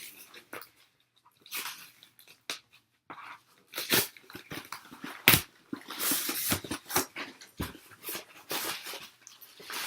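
Cardboard box flaps and packing paper being handled and pulled open: irregular rustling and crinkling with scattered clicks, and one sharp knock a little past halfway.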